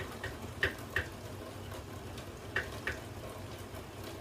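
A kitchen spoon clinks against a container a few times: two or three quick clinks in the first second and two more near three seconds, all over a steady low hum. This is the sound of a spoonful of raw honey being scooped and plopped in.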